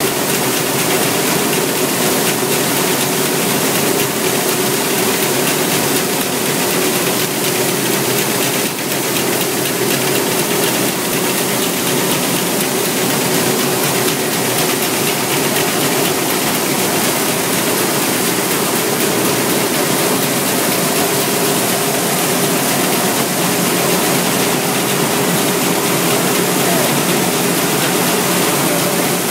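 Coffee-processing machinery running steadily: a motor-driven perforated metal sorting screen with coffee beans pouring onto it from a chute. A constant mechanical hum under the hiss and rattle of the beans.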